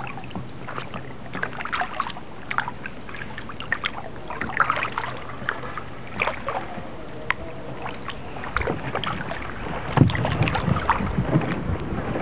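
Kayak paddle strokes dipping and splashing in the water, coming irregularly, with a heavier thump about ten seconds in.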